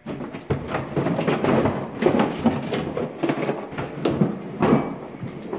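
Hands rummaging through a cardboard box of packaged toys: plastic packaging and cardboard rustling and clattering in a steady jumble of small knocks, with a plastic toolbox lifted out of the box part way through.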